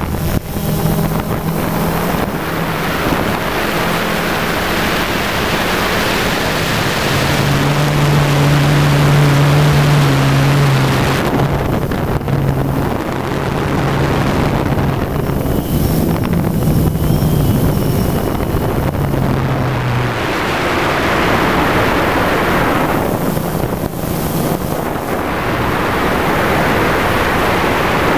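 DJI Phantom quadcopter's motors and propellers buzzing in flight, a steady hum that shifts in pitch and fades about two-thirds of the way through, under heavy wind rush on the microphone that swells and drops several times.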